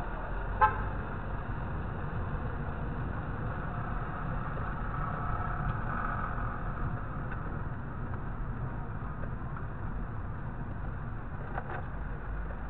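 Car cabin noise as heard by a dashcam while driving: steady engine and road rumble. A short, sharp sound stands out about half a second in.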